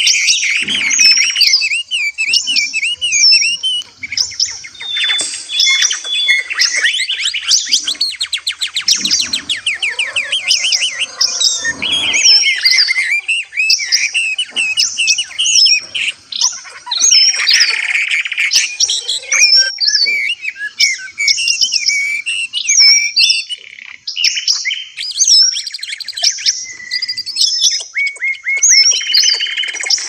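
Several small caged songbirds chirping and singing over one another, with quick whistled phrases and sharp chirps, and a fast rattling trill about eight seconds in.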